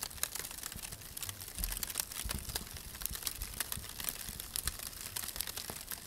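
Wood fire crackling: dense, irregular sharp pops and snaps over a soft low rumble.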